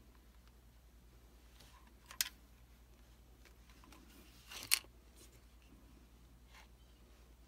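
Two short clicks as a Ruger 10/22's receiver and barrel are worked down into its synthetic stock: a light click about two seconds in and a sharper, louder one near five seconds, over a faint low hum.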